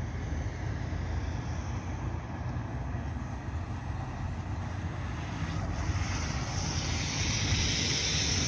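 Articulated electric city bus approaching and driving past close by, its tyre and drive noise swelling into a loud hiss over the last couple of seconds, over a steady low wind rumble on the microphone.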